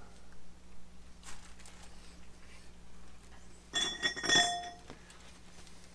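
Small metal brake-line hardware being handled: faint light taps, then a brief cluster of metallic clinks with a ringing tone about four seconds in.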